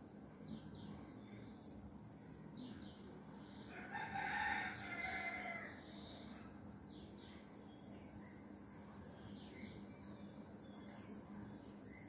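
A rooster crows once, a single call of about two seconds a few seconds in, over a faint steady high-pitched background hum.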